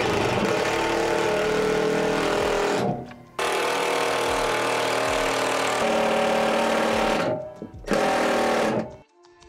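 Cordless impact driver driving screws into a plywood platform, with a rapid rattling hammer. It runs in three bursts: a long run that stops about three seconds in, a second long run, and a short last burst that ends about nine seconds in.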